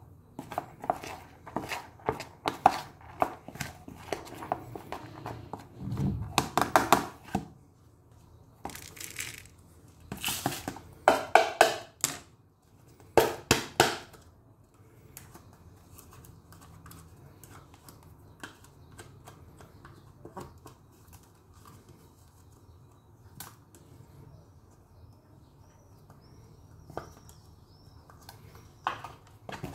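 Hands at work on a kitchen counter with containers and dry ingredients: a busy run of rattling, rustling and clattering for about the first half, then quieter, with a few light clicks and taps.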